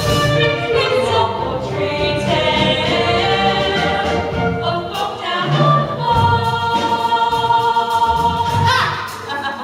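A stage musical's cast singing together in chorus. A long held note starts about six seconds in and breaks off shortly before the end.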